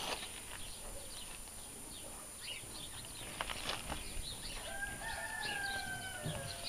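A rooster crowing: one long held call starting about five seconds in, dipping slightly at its end, with faint short chirps and clicks scattered around it.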